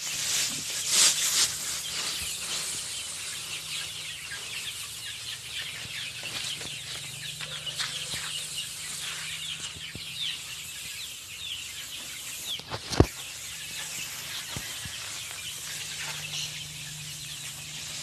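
Many young chicks peeping continuously, a dense chatter of short high chirps. A single sharp knock sounds about thirteen seconds in.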